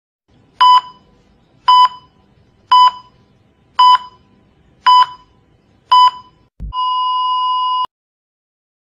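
Heart monitor (ECG) sound effect: six short beeps about a second apart, then a brief low thump and a steady flatline tone lasting about a second that cuts off suddenly. The flatline tone is the monitor's sign that the heartbeat has stopped.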